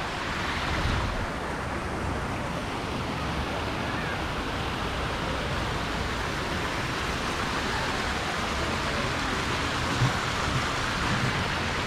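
Steady rushing noise, even from low to high, with a faint flickering rumble underneath and a brief knock about ten seconds in.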